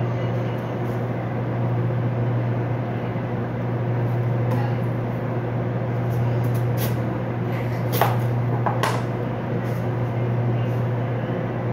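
Steady low electrical hum of shop refrigeration and lighting, with a watermelon being cut with a large knife and handled on a cutting board: two sharp knocks about eight and nine seconds in, the first the loudest.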